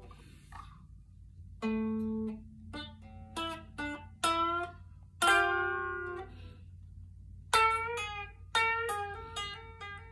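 Telecaster-style electric guitar played clean, picking single notes and short phrases. Some notes are left to ring, and a quicker run of notes comes near the end, over a steady low hum.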